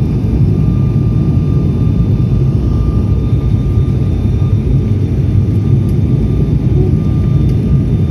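Steady cabin noise of a turboprop airliner on its approach: a loud, even rumble from the engines and propellers with a thin steady whine above it.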